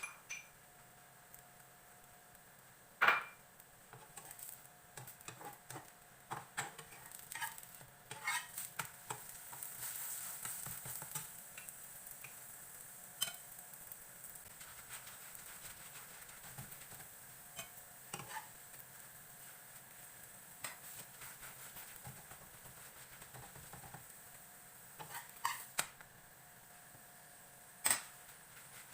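Kitchen handling sounds: scattered clinks and knocks of utensils and dishes, with a short stretch of hiss about 8 to 11 seconds in.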